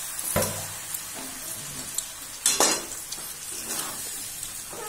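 Chicken pieces sizzling in oil and sauce in a steel kadai while a steel spatula stirs them, with two sharper clatters of the spatula against the pan, about half a second in and again around halfway through.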